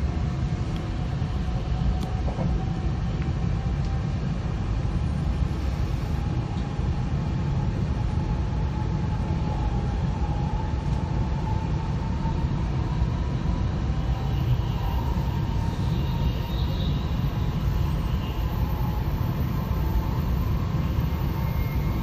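Steady rumble of a 700 series Shinkansen running at speed, heard from inside the passenger cabin, with a faint whine that slowly rises in pitch.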